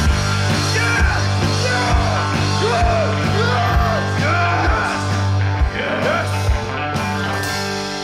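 Rock band music with no vocals: a lead line with bending, swooping notes over a steady drum beat and bass. About six and a half seconds in, the drums stop and held notes ring on.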